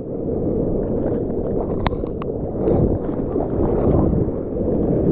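Surf water rushing and splashing against a GoPro, with wind buffeting its microphone: a dense, steady low rush with two sharp ticks about two seconds in.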